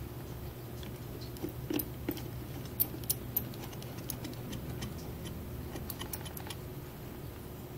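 Small precision screwdriver ticking and clicking against a tiny screw and the 3D-printed plastic suspension of a 1/24-scale RC car chassis as the screw is turned, with light handling clicks of the plastic parts. A few louder clicks come about three seconds in, over a steady low hum.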